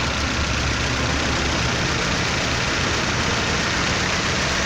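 Fiat Palio Weekend 1.8 engine idling steadily, with an even rushing noise over its low hum.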